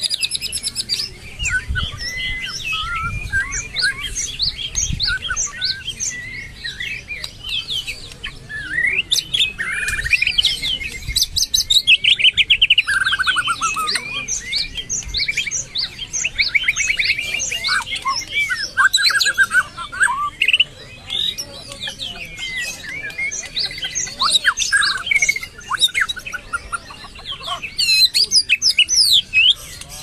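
White-rumped shama singing a long, varied song of rapid trills, rising and falling whistles and runs of fast repeated notes.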